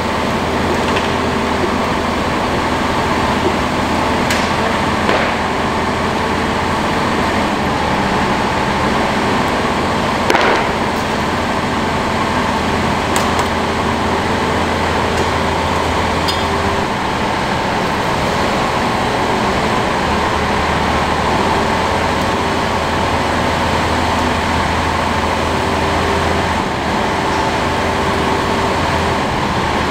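Hyundai HX480L excavator's diesel engine running steadily at a constant speed, with a few short knocks.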